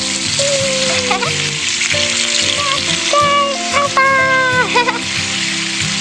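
Garden hose spraying water in a steady hiss, over background music.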